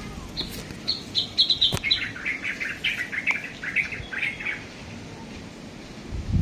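A bird sings a quick run of chirping notes for about four seconds, starting high and stepping lower. A low thump comes near the end.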